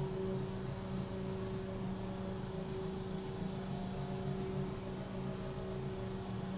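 Steady low mechanical hum with a constant tone.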